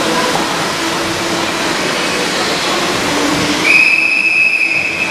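Referee's whistle blown once near the end, a single steady blast of about a second and a half, over the steady background noise of an indoor pool hall.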